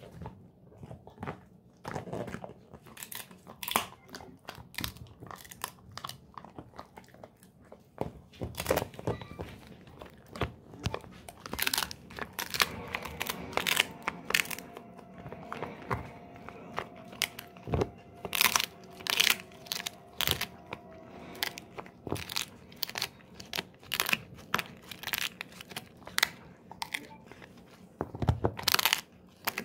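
Golden retriever chewing a dried pig ear, with many sharp, irregular crunches and cracks as the stiff, brittle ear breaks up between its back teeth.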